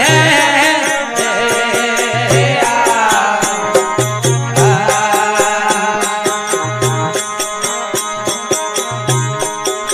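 Rajasthani folk bhajan music between sung lines: a steady beat of percussion strokes several times a second over a low drum pattern and a melody line, with a held sung note trailing off in the first second.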